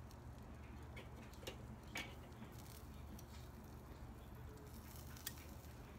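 A few faint, sharp clicks of metal tongs against a charcoal kettle grill's cooking grate, over a low steady hum.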